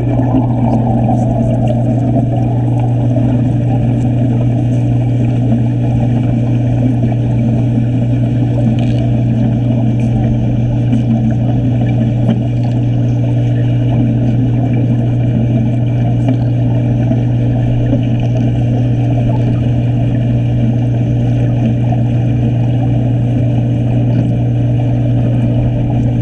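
An underwater stick-welding arc strikes right at the start and then keeps up a steady crackling buzz as the electrode burns, heard through the water. A constant low hum runs underneath the whole time.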